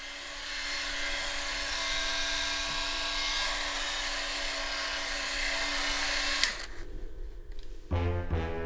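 Electric shaver running with a steady buzz as it is drawn over a beard, cutting off abruptly about six and a half seconds in.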